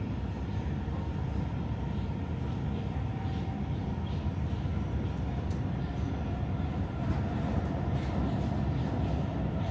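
Stockholm metro train running, heard from inside a passenger car: a steady low rumble of wheels and running gear with a few faint clicks.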